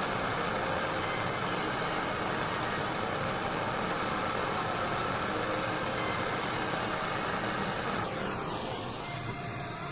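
Steady mechanical running noise, like a motor, that winds down in pitch and fades near the end.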